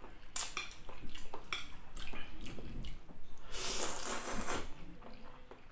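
Close-up wet eating sounds: chewing with sharp mouth clicks, then a long hissing slurp of spicy noodles about three and a half seconds in, lasting about a second.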